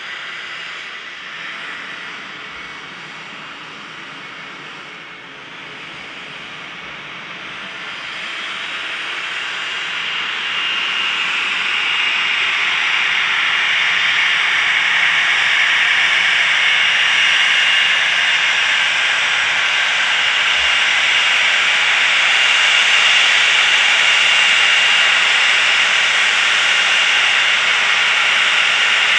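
Cessna Citation XLS+ business jet's twin Pratt & Whitney PW545C turbofans at taxi power: a steady hissing whine with a thin high tone. It grows louder from about eight to twelve seconds in as the jet taxis closer, then holds steady.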